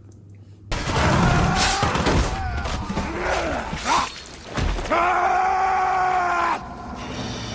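A loud edited-in comic sound effect: a voice groaning and wailing with sliding pitch, then one long held cry. It starts and stops abruptly.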